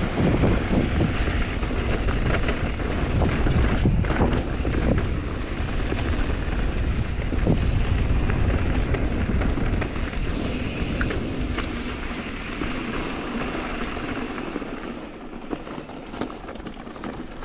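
Wind buffeting the microphone of a moving mountain bike, with rumbling tyre noise and a few sharp knocks over rough ground; it eases off over the last few seconds.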